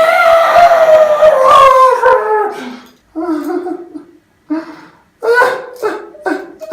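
A man's loud, long, wordless yell, held for about three seconds and slowly falling in pitch, then several short shouted vocal outbursts: an outburst of frustration.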